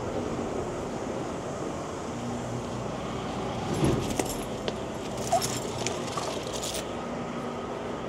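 Metal chain clinking and rattling as it is handled by hand, in a cluster of sharp clinks from about four seconds in to nearly seven seconds, over a steady mechanical hum.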